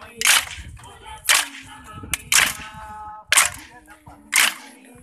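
Wooden hand sticks struck together in unison by a group of stick dancers in a kolatam-style dance, five sharp clacks evenly spaced about a second apart. Singing carries on between the clacks.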